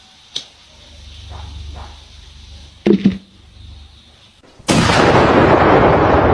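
A firecracker lit under an upturned plastic plant pot goes off: a sudden loud blast about three-quarters of the way in that carries on as a long, loud noise, slowly dulling. Before it there are only a few small clicks and a short knock.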